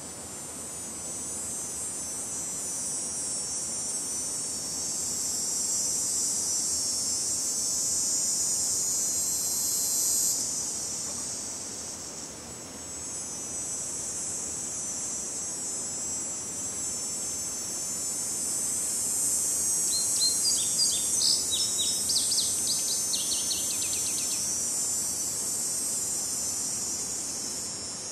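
Steady, high-pitched insect chorus from the creek banks. About twenty seconds in, a bird calls in a quick run of short notes that step down in pitch.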